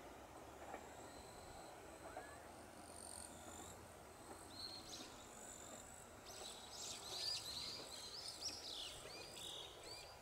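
Small birds chirping in quick, repeated series, thickest in the second half, over a faint steady outdoor background with a thin high steady tone. A faint low rumble from the receding electric train fades early on.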